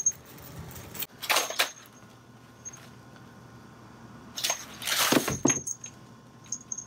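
A kitten playing, with short bursts of rustling and scuffling against a black fabric bag and the floor: one about a second in, then several close together around four to six seconds in.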